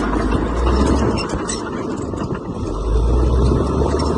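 Heavy diesel earthmoving machinery running. The low engine drone eases about a second in and swells again near three seconds, with scattered light clanks over it.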